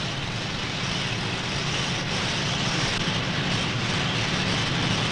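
Rotary letterpress newspaper presses, printing from curved lead stereotype plates, running with a steady, even mechanical din as the paper web passes over the rollers.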